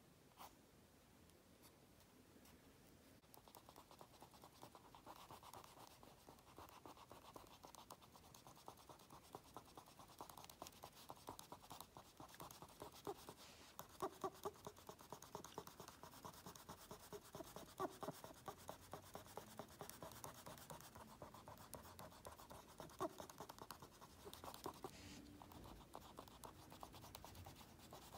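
Faint scratching of a pen tip on an index card in many quick, short strokes, starting about three seconds in, with a few louder strokes scattered later.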